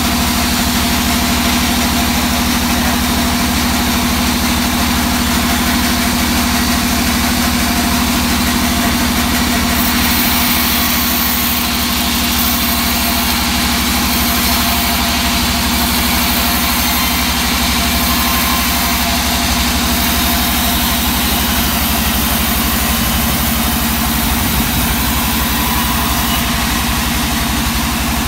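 Vertical band saw running steadily with a constant hum while its blade cuts through a slab of hard teak wood. A high hiss brightens in patches through the middle of the cut.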